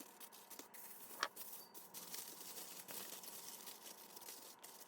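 Faint crinkling and light rustles of aluminum foil being laid loosely over a baking pan, with one sharper click about a second in.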